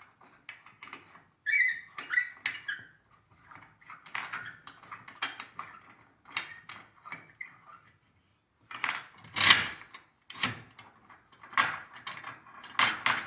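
Metal clamps being slid into place and tightened on a freshly glued cabinet door: scattered clanks, knocks and rattles of the clamp parts, with a couple of louder knocks about two-thirds of the way through and a quick run of clicks near the end.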